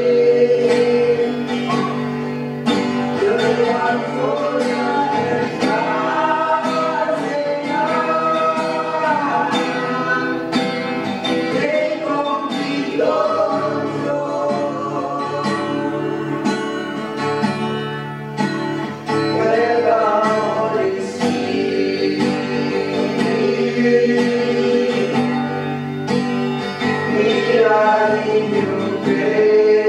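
Voices singing a Christian praise song over strummed guitar, with a regular strumming rhythm.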